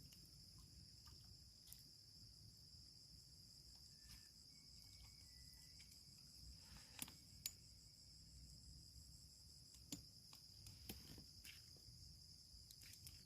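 Near silence with a faint, steady chorus of insects, a continuous high trill. A few soft clicks come about halfway through.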